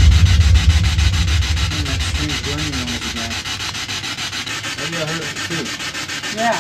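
Spirit box sweeping through radio stations: choppy static hiss, chopped rapidly several times a second. A loud low whirring under it fades away over the first two seconds, and faint wavering tones come through later on.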